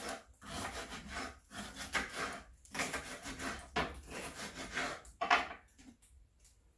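Kitchen knife slicing a green bell pepper on a wooden cutting board: a run of uneven rasping strokes that stops about five and a half seconds in.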